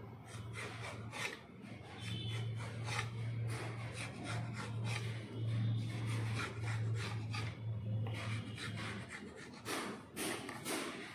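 Knife cutting a thin rolled sheet of mathri dough in repeated short strokes, the blade scraping on the metal plate beneath. A steady low hum runs underneath and stops about nine seconds in.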